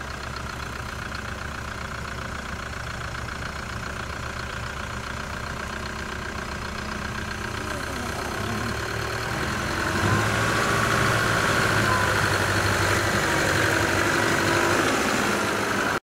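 Toyota Hilux pickup with a camper body crawling down a steep rocky track, its engine running at low revs. It grows louder over the second half as the truck comes close.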